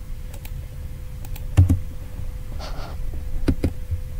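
Scattered clicks of computer keyboard keys and mouse buttons, one louder click about one and a half seconds in and a quick pair near the end, with a brief soft rustle between them. A faint steady hum runs underneath.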